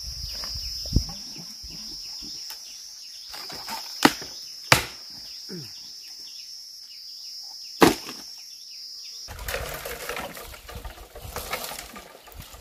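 Steady high-pitched insect drone with a few sharp knocks over it. The drone stops abruptly about nine seconds in, and a rough, scratchy noise takes over.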